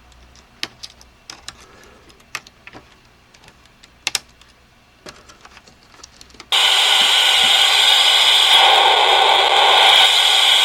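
Light scattered clicks and taps, then about six and a half seconds in a loud, steady hiss starts abruptly. The hiss is the noise-generator circuit of a Busch 2073 electronics kit producing white noise with a 3.3 nF capacitor fitted, the value that gives a good range of noise.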